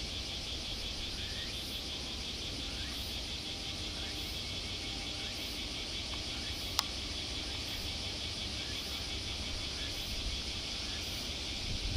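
A steady chorus of insects shrilling, a fine pulsing buzz, over a low rumble. A single sharp click comes about seven seconds in.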